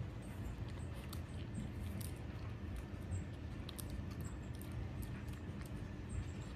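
A small dog sniffing out and crunching small treats off a rug, with scattered light clicks and faint jingles from the metal tags on its collar, over a low steady rumble.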